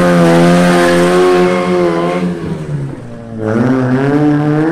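Fiat 126p with a 1108 cc engine revving hard under acceleration: its pitch climbs at the start and holds high, drops for about a second a little past the halfway point, then climbs again.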